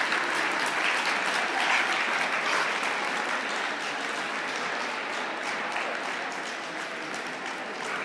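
Spectators clapping in steady applause, loudest about two seconds in and slowly tapering off.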